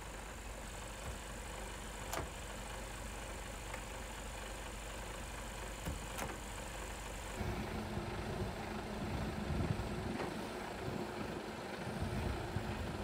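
Mercedes-Benz Actros tractor unit's diesel engine idling steadily, with two sharp clicks about two and six seconds in as the trailer's air-line and electrical connectors are handled. About seven seconds in, the engine hum turns louder and fuller.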